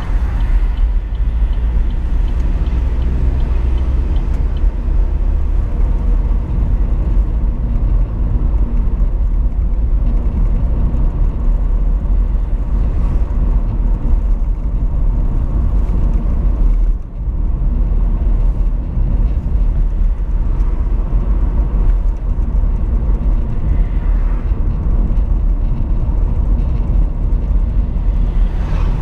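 Car's engine and tyre road noise heard from inside the cabin while driving: a steady low rumble. It dips briefly a little past halfway.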